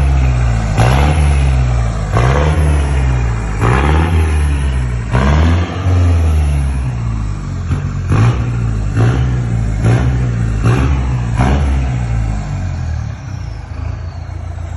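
Ford F-1000 pickup's engine being blipped on the throttle about ten times, each rev rising and falling back. It settles to a steady idle for the last few seconds.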